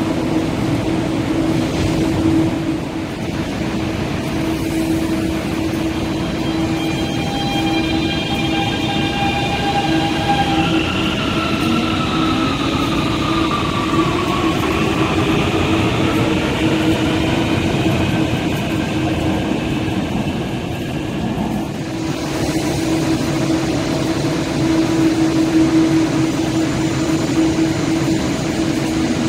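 Refurbished Guangzhou Metro Line 1 Type A1 metro train pulling away, its replacement Jingwei traction motors and inverter whining over a steady low hum. Several whine tones appear about a third of the way in, then slide in pitch as the train gathers speed.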